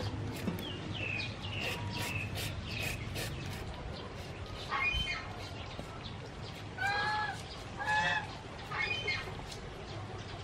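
Domestic fowl calling, a few short calls with the loudest about seven and eight seconds in, over light repeated scraping of a julienne peeler shredding cucumber.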